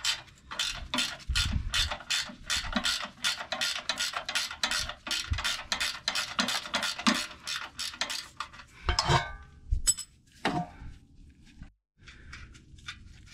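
12 mm ratcheting wrench clicking rapidly, about five clicks a second, as it backs out a bolt. The clicking stops after about eight and a half seconds, followed by a few separate metallic knocks and some fainter ticks.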